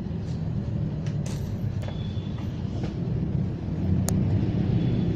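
A steady low rumble like a running engine or passing traffic, with a few brief clicks.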